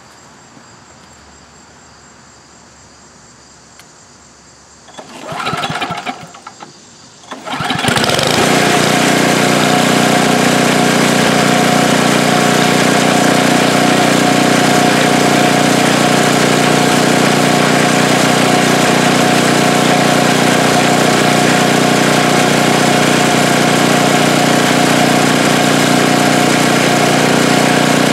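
Craftsman snow blower's small engine being started: a short first attempt about five seconds in, then it catches about two seconds later and runs steadily at an even speed. The steady running, with no surging or stalling, comes from a carburetor fitted with a new needle and seat, replaced because a swollen seat was starving the engine of fuel.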